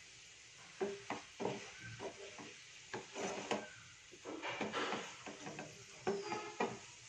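Spatula stirring soya chunks through coconut milk in a nonstick frying pan, in a string of short, irregular scraping strokes.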